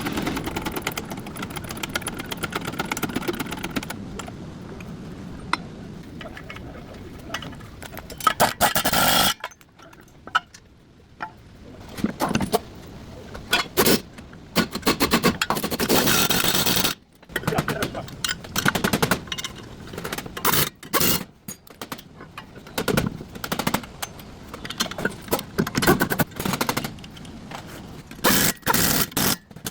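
Metal tools and parts clattering and scraping in irregular short bursts, as in wheel-bearing repair work.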